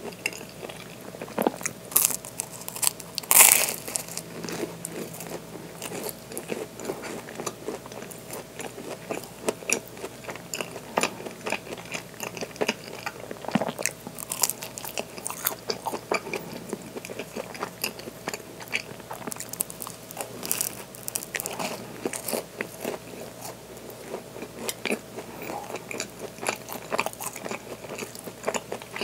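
Close-miked bites and chewing of a blueberry Danish pastry, with many small sharp crackles throughout and the loudest bite about three and a half seconds in.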